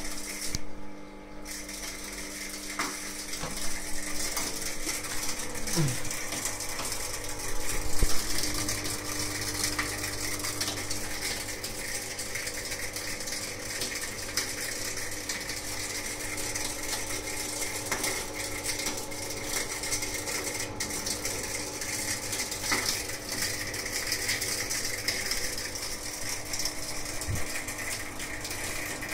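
Indesit washing machine pump running with a steady hum and a continuous rattling, ratcheting noise, the sign of a faulty pump. A louder knock comes about eight seconds in.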